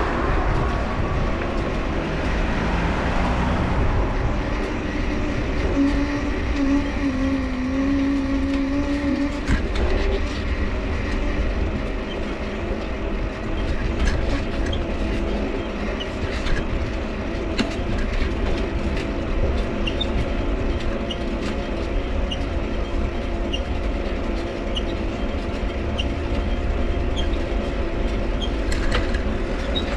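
Mifa folding bike being ridden, with its dynamo humming steadily over the rumble of the tyres; the hum shifts in pitch for a few seconds early on. From about halfway, the crank squeaks briefly about once a second, once per pedal turn.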